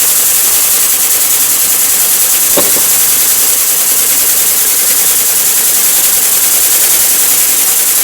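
Pneumatic impact wrench running continuously, driving the screw of a bearing press tool to press a new front wheel bearing into the steering knuckle. It is loud and steady, with a fast flutter and one brief knock about two and a half seconds in.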